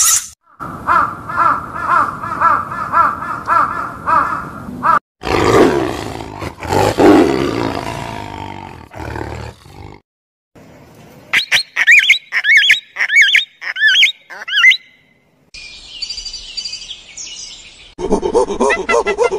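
A run of different animal calls, one after another. First comes a rapid, evenly repeated call, then a tiger's deep roar lasting about five seconds, then high chirping calls. Near the end, monkeys call.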